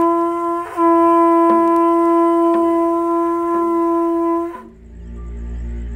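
Conch shell trumpet blown in a loud, steady horn note: a short first blast, a brief break, then one long held note that stops about four and a half seconds in. A low steady drone follows near the end.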